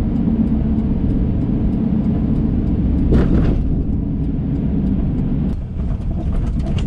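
Pickup truck driving, heard from inside the cab: a steady engine and road rumble. About three seconds in a brief louder rushing noise passes. Near the end the engine note drops a little as the truck slows to turn in.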